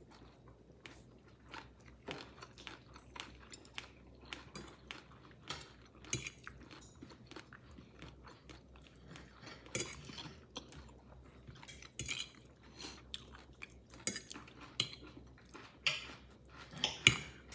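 A person eating: a fork tapping and scraping against a plate in irregular clicks, with chewing in between. The loudest clatter comes near the end.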